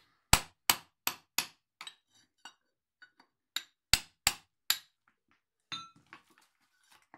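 Hammer striking a chisel set into a slab of Shiro Suita natural whetstone rock to split it: two runs of sharp strikes at roughly three a second, then a couple of lighter taps near the end.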